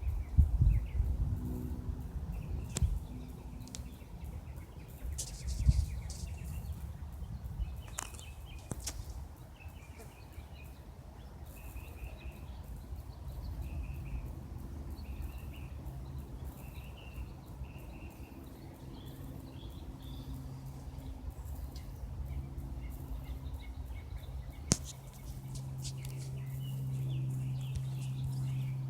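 Single-engine Cessna light plane droning steadily overhead, its engine hum growing louder near the end as it comes back over. Small birds chirp repeatedly throughout, and a few sharp knocks come in the first seconds.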